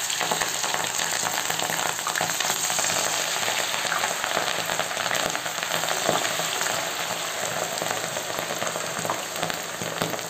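Batter-coated Brazilian spinach leaves deep-frying in a pot of hot oil: a dense, steady sizzle full of small crackles, easing slightly near the end.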